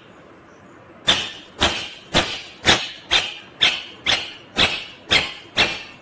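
Loud, sharp animal calls repeated evenly about twice a second, starting about a second in.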